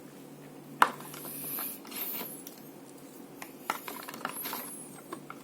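Handling noise from the earphones and their packaging: a sharp click about a second in, light rubbing, and a few small clicks near the end.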